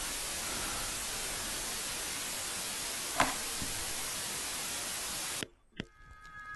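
Television static hiss, steady, with a short click about three seconds in. Near the end the hiss cuts off suddenly as the set is switched off, followed by one faint click.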